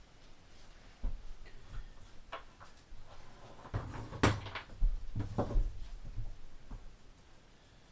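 Irregular knocks and clunks of vinyl floor planks being handled and fitted into place. The sharpest, loudest knock comes about four seconds in.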